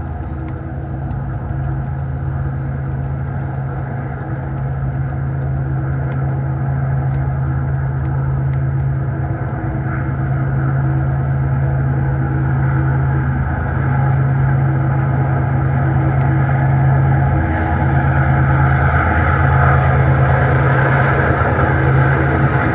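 Diesel locomotive engine sound effect for an HO-scale SD90/43MAC model: a steady low running hum that grows slowly louder and brighter, as if the engine is notching up.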